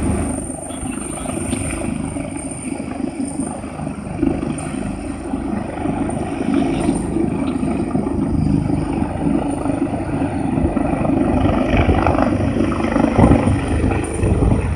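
Helicopter lifting off from an offshore platform's helideck: a steady rotor and engine noise that grows gradually louder as it climbs away.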